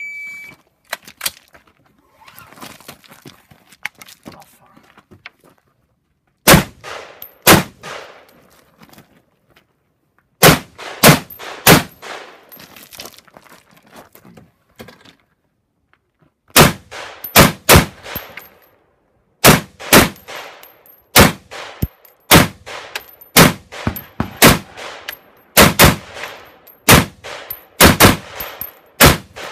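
A shot timer beeps once, then a rifle fires in strings: two shots a second apart, a quick group of about four, and then fast pairs and strings that run to the end. A faint high metallic ping follows many of the shots, from hit steel targets.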